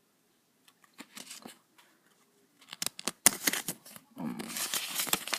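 Hands handling a small retail box and its paper inserts: faint clicks at first, then from about three seconds in loud sharp clicks and dense paper rustling.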